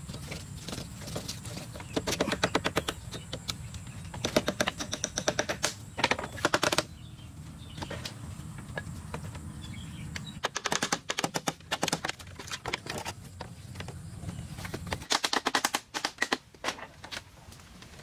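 Several quick runs of sharp, rapid taps, with pauses between them. A low steady rumble lies beneath them and stops about fifteen seconds in.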